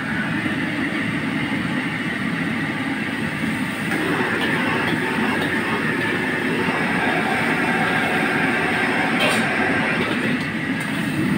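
Crabs deep-frying in a wok of hot oil: a steady sizzle and bubbling, with a few sharp pops and crackles.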